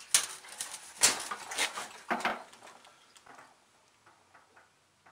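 A cloth rubbing and scuffing against a portable generator as leaked gasoline is wiped from around its fuel petcock: a run of short, sharp scuffs and knocks that fades after about two and a half seconds to a few faint ticks.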